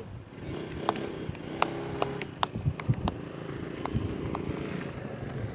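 Steady low drone of an ATR 72-600's turboprop engines and propellers, fainter than the rest of the recording, with scattered sharp clicks and low knocks over it.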